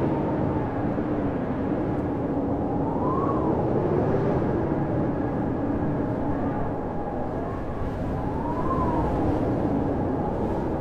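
Blizzard wind howling: a steady rush with a low drone, and whistling gusts that rise and fall in pitch about three times.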